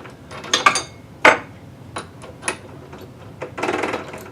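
Tools being handled while getting ready to drill: a few clicks and knocks, one with a brief metallic ring, a sharper knock, then a short rattling burst near the end.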